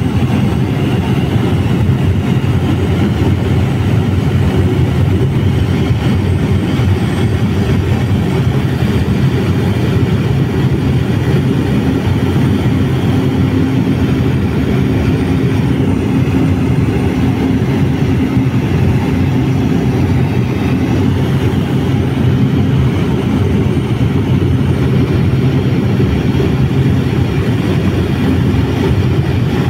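Steady engine and airflow noise heard inside the cabin of a low-flying aircraft, with a faint steady hum that comes in around the middle.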